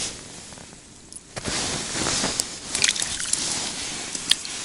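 Close rustling of clothing and gear against a body-worn camera, with several sharp clicks and ticks. It is quieter for the first second, then louder.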